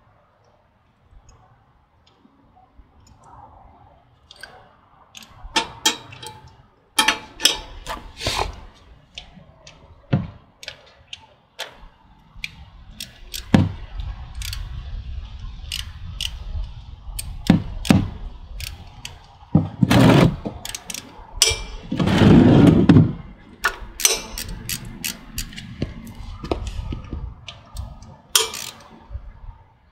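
Scattered sharp clicks, clanks and knocks of hand tools and metal parts being handled under a motorcycle while its oil drains, over a low rumble. A louder burst lasting about a second comes about three-quarters of the way through.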